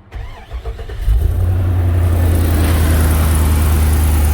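GMC truck's 6.0-litre V8 cranking for about a second, then catching and running steadily, with a hiss growing in over the engine note that fits a little bit of an exhaust leak.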